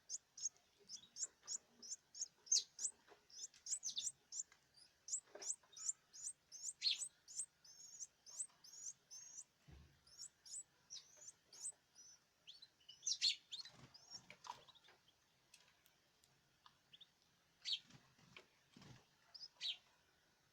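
Small cage birds chirping: a quick, even run of short, high chirps, about two to three a second, then sparser, scattered chirps.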